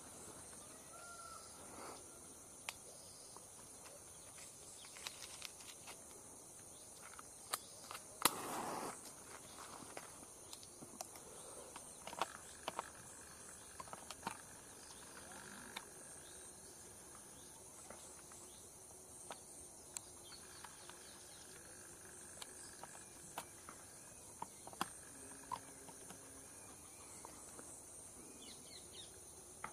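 Forest ambience: a steady, high-pitched insect chorus, with scattered sharp clicks and snaps and one short, louder noisy burst about eight seconds in.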